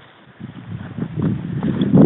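Quick footsteps on a dirt trail with rustling and knocking of the camera against clothing, starting about half a second in and growing louder.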